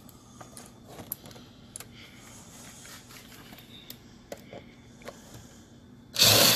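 Light clicks and rustles of cables and a metal clip being handled, then near the end a cordless drill-driver runs briefly and loudly, driving a screw to fasten the metal cable clip to the wooden wall.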